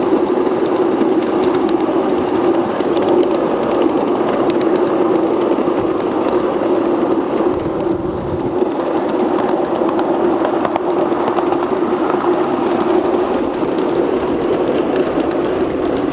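A 1 1/2-inch-scale ride-on miniature train running along its track, heard from a car of the train: a steady running noise with a constant hum and scattered light clicks.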